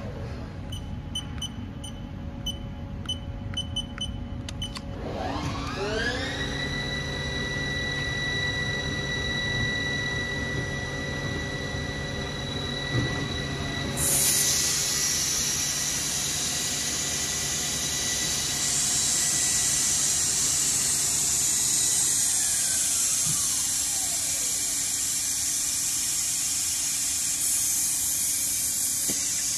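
Haas TL3 CNC lathe spindle drive whining: it winds up in pitch about five seconds in, holds a steady high whine, then winds down again a few seconds before the end. About halfway through, a loud steady hiss starts suddenly and continues.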